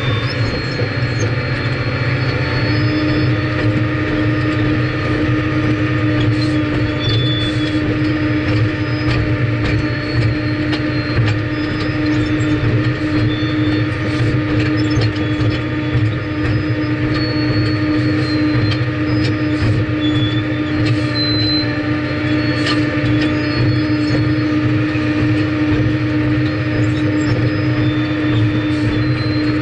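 Cat 615 paddle-wheel scraper working, its diesel engine running steadily under load while the chain-and-flight paddle elevator turns. A steady whine joins about two and a half seconds in, with scattered short high squeaks and ticks from the moving elevator throughout.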